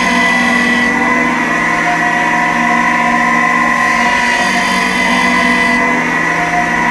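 Electric sanding machine running steadily with a constant motor whine and hiss as a graphite glassworking tool is sanded to shape.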